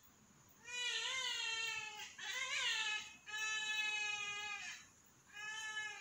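A flock of trumpeter hornbills giving their child-like screaming calls: four long wails of about a second each with short pauses between. In the second wail the pitch wavers and several birds' voices overlap.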